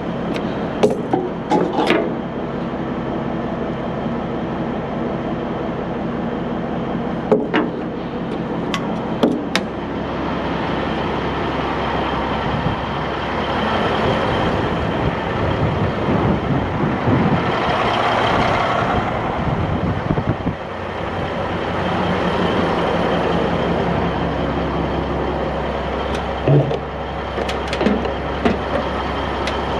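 Caterpillar 3406B diesel of a Peterbilt cabover truck running steadily, with sharp short knocks and rattles near the start, again a few seconds later and near the end. The engine noise swells in the middle and then settles.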